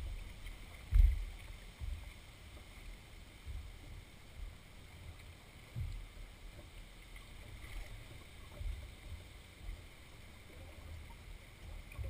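Canoe being paddled through floodwater: irregular low knocks and bumps through the hull, roughly one a second, the loudest about a second in, over a faint wash of water.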